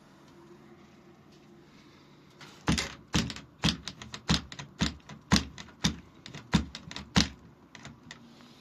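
A quick, irregular run of sharp clicks and knocks, about three a second, starting a few seconds in and stopping a little over four seconds later.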